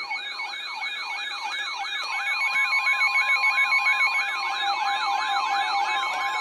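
Several weather alert radios alarming at once: a fast warbling siren alarm sweeping up about three times a second, over a steady alert tone and electronic beeping. The radios are going off for an incoming severe thunderstorm warning.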